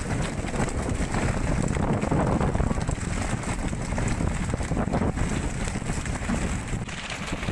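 Wind buffeting the microphone over the rushing noise of a moving fishing boat and the sea around it, with a few sharp knocks about five seconds in.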